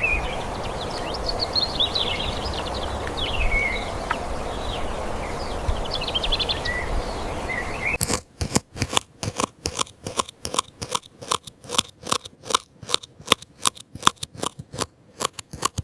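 Outdoor ambience with a low wind-like rumble and scattered bird chirps. About halfway through it cuts to a run of sharp, dry clicks, a few a second and irregular.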